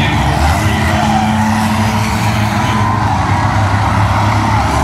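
Engines of several short-track race cars running together as the pack passes close by, a steady blend of engine notes.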